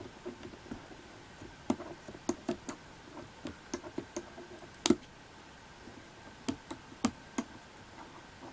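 Scissors snipping the fastenings that hold a plush toy inside its hard plastic housing: an irregular run of sharp clicks and knocks of the blades against the plastic, the loudest about five seconds in.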